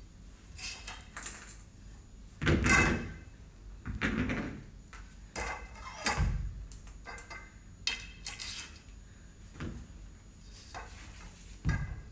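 Weight plates being slid onto and off the ends of a barbell: a series of knocks, clacks and rattles a second or two apart, the loudest about two and a half seconds in.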